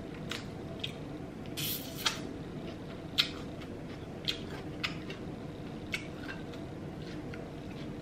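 Close-miked eating of pho: wet chewing of a mouthful of rice noodles, with scattered sharp mouth clicks and one short slurp-like burst under two seconds in.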